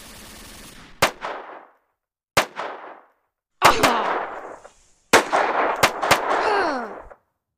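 Gunshot sound effects from toy rifles in a stop-motion battle. Single shots come about a second apart, then a quicker cluster, each crack with a short decaying tail. Near the end a cry falls steadily in pitch.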